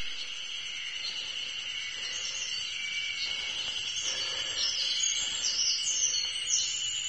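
Chorus of Ezo-harusemi spring cicadas, a steady high drone. In the second half, repeated short sliding higher notes come in over it and grow louder.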